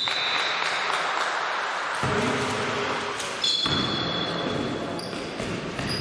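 Basketball shoes squeaking on a gym court, with short high squeaks at the start and again about halfway through, over the steady noise of play and a ball bouncing.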